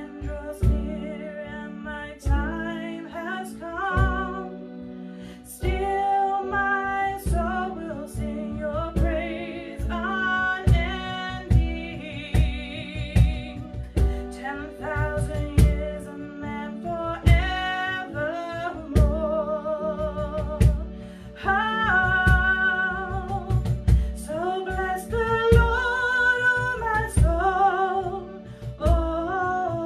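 A woman singing a worship song to electronic keyboard accompaniment, sustained chords under the melody with a steady beat.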